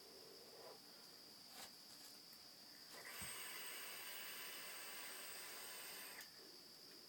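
Sub-ohm vape atomizer with a rebuilt 0.3 ohm coil firing during a draw: a hiss of the coil sizzling and air drawn through the atomizer, starting about three seconds in and lasting about three seconds.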